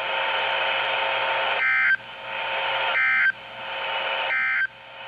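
Emergency Alert System end-of-message signal: three short, shrill digital data bursts about a second and a half apart, with radio hiss between them, marking the close of the alert.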